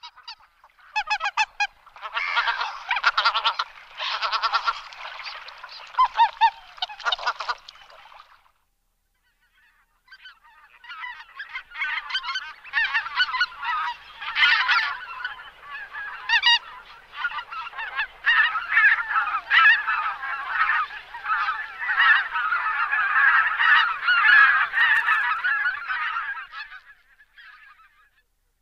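A flock of greater white-fronted geese calling, with many honks overlapping. The calling breaks off for about two seconds near the middle, then comes back as a denser chorus.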